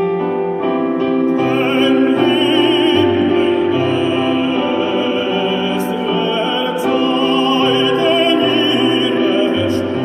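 Operatic baritone singing a sustained line with wide vibrato, accompanied by piano. The voice enters about a second and a half in, over piano chords.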